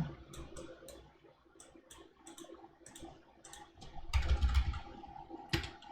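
Typing on a computer keyboard: irregular single keystrokes, then a denser, louder run of keys with low thuds from about four seconds in.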